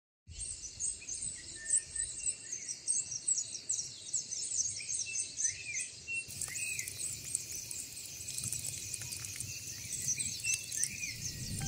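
Many birds chirping and calling together, a dense run of high chirps over lower, slurred whistled notes. It cuts in suddenly after a moment of silence at the start.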